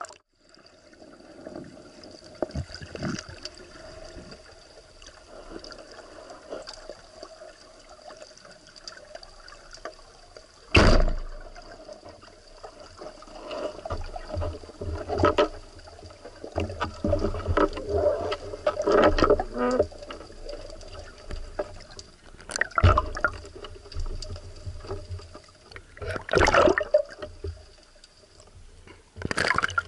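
Underwater water noise heard through a diver's camera: a continuous gurgling and bubbling, broken by several sudden loud sloshing surges, about 11 s in and again in the second half. A faint steady high tone runs beneath it.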